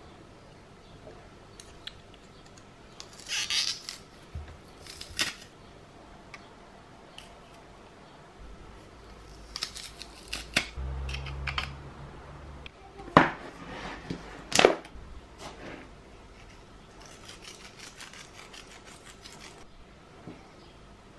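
Handheld garlic press crushing garlic cloves over a stainless steel saucepan: scratchy clicks and crunches of the press working, with two sharp clacks, the loudest sounds, about 13 and 15 seconds in.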